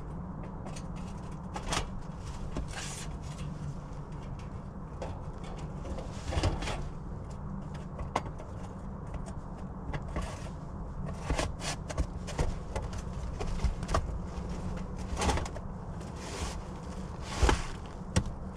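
Scattered taps, knocks and scrapes of hand work fitting counter flashing at a brick chimney, heard over a steady low rumble.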